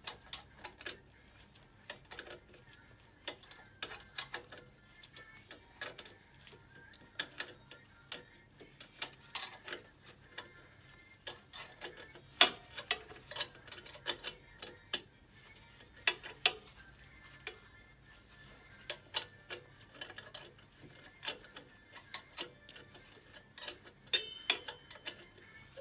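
Ratchet wrench clicking in short runs, with sharp metal clinks of tools on the rear brake caliper and axle parts of an ATV as the caliper bolts are tightened.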